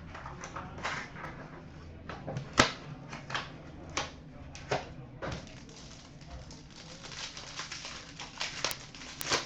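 Hands opening a sealed box of hockey trading cards and handling the cards and packaging: scattered clicks and taps, then steadier rustling from about halfway through.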